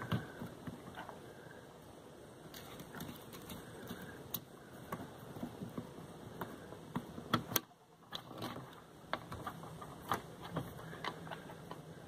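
Hands handling bundled low-voltage thermostat wires and plastic wire connectors: light, irregular clicks and rustling of wire and insulation.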